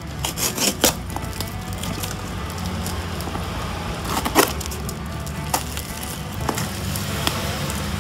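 Crackling and crinkling of a parcel wrapped in plastic and brown packing tape being handled and opened, with a quick run of crackles at the start and single sharp cracks every second or so later on.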